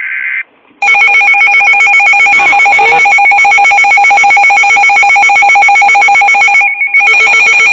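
The end of a NOAA Weather Radio SAME data burst, then a weather alert radio's built-in electronic alarm ringing: a loud, rapid warbling beep with a short break near the end. It signals an incoming severe thunderstorm warning.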